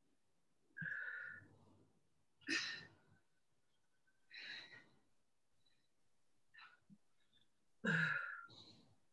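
Person breathing out hard in short, sighing exhalations from the exertion of doing push-ups, about five breaths spaced a second or two apart; the loudest come about a second in and near the end.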